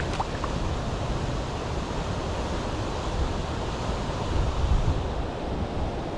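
Shallow river rushing steadily over a cobble bed, with gusts of wind rumbling on the microphone.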